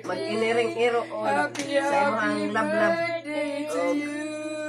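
Voices singing unaccompanied, in drawn-out phrases with a long held note in the second half.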